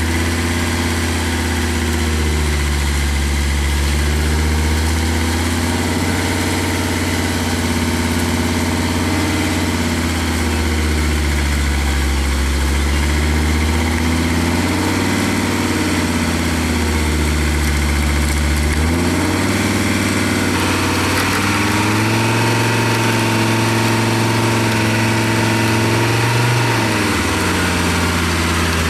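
GAZ-69 off-road special's engine working at low speed as the truck crawls over rough forest ground, its pitch swelling and dropping every few seconds, then held higher for several seconds near the end before falling back.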